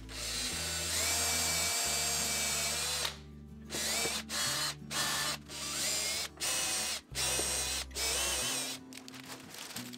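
Power drill boring holes into a wooden butcher block top, with the bit taped as a depth stop. It runs for about three seconds, then comes in about six short bursts of under a second each.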